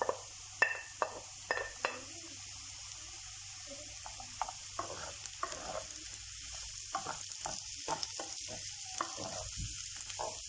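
Sliced mushrooms tipped from a plate into a sizzling frying pan of potatoes, with a few sharp clicks in the first two seconds. Then a wooden spoon stirs and scrapes the potatoes and mushrooms around the pan over a steady hiss of frying.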